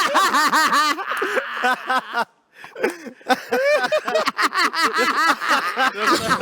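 Wordless male vocalizing: rapid, high-pitched voice bursts mixed with mouth clicks. It breaks off briefly about two seconds in, then resumes.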